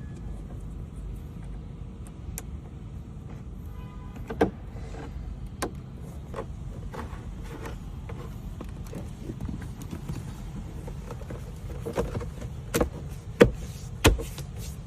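Scattered clicks and knocks of plastic interior trim and wiring connectors being handled and plugged in, louder and more frequent near the end, over a steady low rumble.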